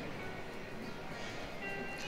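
Background music, low in level, with short scattered notes.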